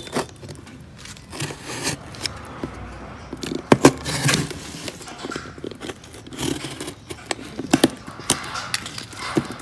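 Scraping and rustling from a bird box or cage being handled, broken by sharp clicks and knocks, the loudest about four and eight seconds in.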